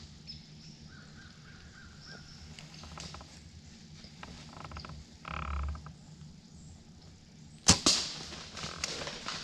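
A whitetail buck blowing once a little past halfway, a short, forceful alarm snort at catching the hunter's scent on the falling thermals. Near the end a single loud, sharp crack rings out.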